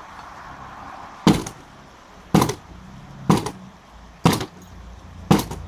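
Sledgehammer striking wood where blocks are attached: five heavy blows about a second apart, each a sharp crack with a short ring after it.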